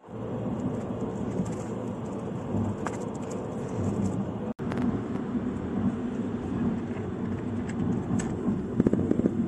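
Engine and road noise of a moving bus heard inside its cabin: a steady low rumble that breaks off for an instant about halfway through, with a few light rattles near the end.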